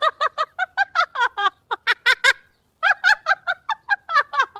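High-pitched laughter: a fast string of short ha-ha syllables, about five a second, with a short break a little past the middle.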